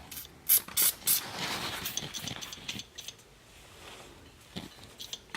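A few sharp metallic clicks, then a hiss of about a second and a half from an aerosol can of PB Blaster penetrating oil being sprayed.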